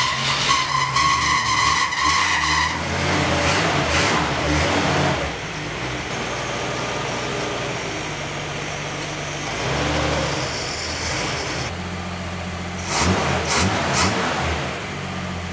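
A 1965 Ford Falcon's inline six with an Autolite 1100 carburetor running just after a start: it runs faster and louder for the first five seconds or so, then settles to a steadier, quieter idle. A high steady tone rings over the engine for the first couple of seconds, and a few short knocks come near the end.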